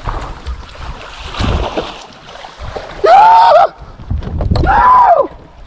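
Two loud, drawn-out wordless yells of excitement from the angler, about three and four and a half seconds in, as he lands a big bass. Under them runs steady wind noise on the microphone and water around the boat.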